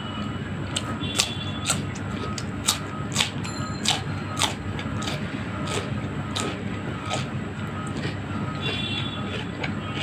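Close-miked eating sounds of a person biting and chewing raw cucumber: a dozen or so sharp, crisp crunches at an irregular pace over a steady low hum.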